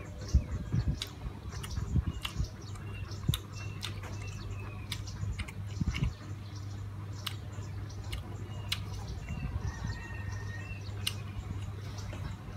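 Close-miked chewing of fried pork, with sharp clicks of chopsticks picking at the plate. A steady low hum runs underneath, and a few bird chirps are heard faintly.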